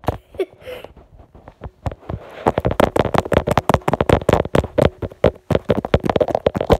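Rapid, irregular clicking and knocking, many per second, starting about two seconds in: handling noise of a phone being gripped and moved about, fingers rubbing and tapping on its body over the microphone.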